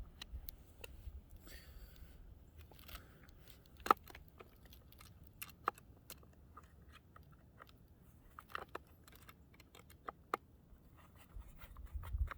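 Irregular small metallic clicks and taps of hand tools tightening the bolts of a rail joint, with a sharper click about four seconds in.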